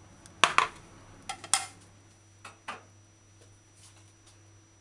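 An orange plastic lid and a ceramic bowl knocking and clattering as the bowl of chicken is covered and moved: a few sharp knocks, loudest in the first second and a half, then two softer ones about a second later.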